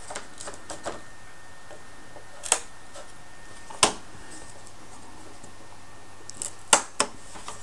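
Small clippers snipping through the wooden tabs that hold a part in a plywood model-kit sheet: a few sharp clicks, one about two and a half seconds in, one near four seconds, and two close together near the end, with fainter ticks between.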